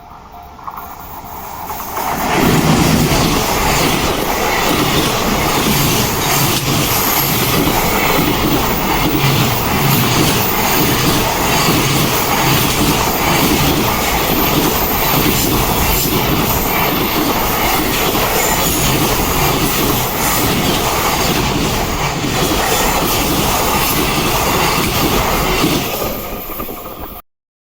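Train passing close by on a four-track main line: the sound builds over the first two seconds, then the wheels run loud and steady over the rails with a rapid clatter for about twenty-five seconds, and cut off suddenly near the end.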